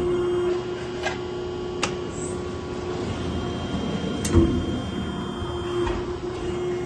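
Hydraulic press brake running, its pump motor giving a steady hum, with sharp clicks about one and two seconds in and a heavier clunk a little past four seconds.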